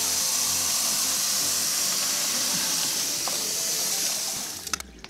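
Hot noodle water being poured out of a cooking pot into a kitchen sink: a steady loud hiss of splashing water and steam that stops suddenly near the end.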